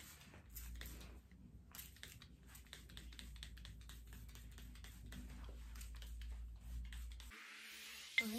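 Faint crackling and small irregular clicks of hands working through hair while spritzing it with a spray bottle of water and conditioner, over a low steady room hum.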